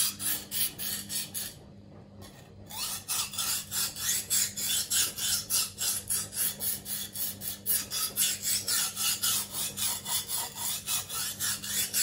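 Kitchen knife blade drawn back and forth over the coarse 150-grit side of a dry Tyrolit whetstone: quick, even scraping strokes, about four to five a second, with a short pause about two seconds in.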